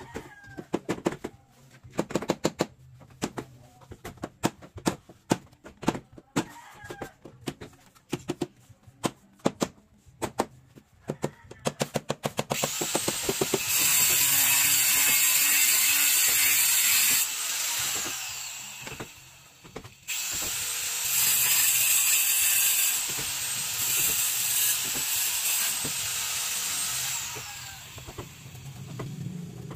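A run of quick clicks and rattles that grow denser, then a small power tool running steadily in two long stretches with a short stop between them, fading near the end.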